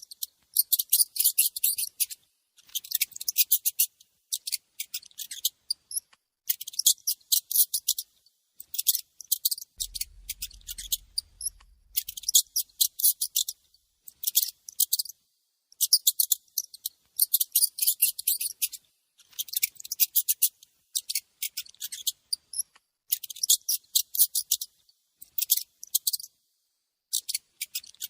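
Mouse squeaking: runs of rapid, high-pitched chirps, each run lasting one to two seconds, with short pauses between runs.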